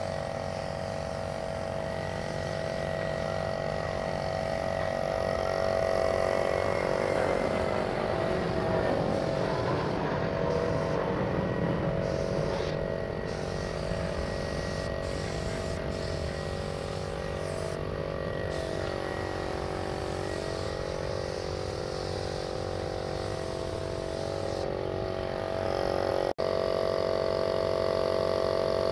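Air compressor running steadily while a gravity-feed paint spray gun hisses, the hiss stopping briefly several times as the trigger is let go.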